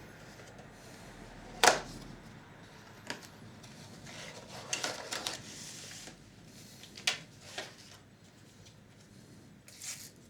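Small parts being handled and pressed back into place in a Panasonic NV-G7 VCR's tape transport: a series of sharp clicks and light knocks, the loudest about a second and a half in and a quick cluster around the middle.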